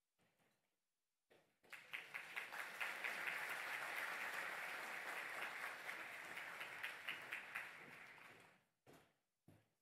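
Audience applauding, starting about a second in and dying away near the end, followed by a couple of faint knocks.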